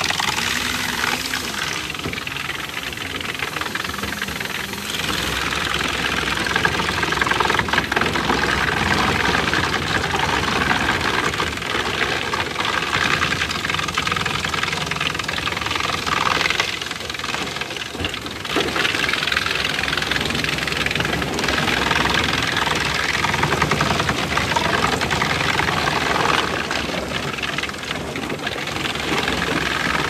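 Wood chipper crushing sawmill waste, running steadily, while a belt conveyor feeds it offcuts and bark slabs. Occasional knocks and clatter come as wood pieces drop and are chipped.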